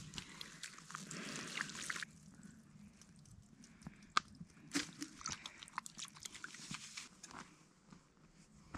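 Water splashing and dripping into a wash basin as long wet hair is rinsed and wrung out over it, for about the first two seconds. Then scattered small clicks and rustles of handling.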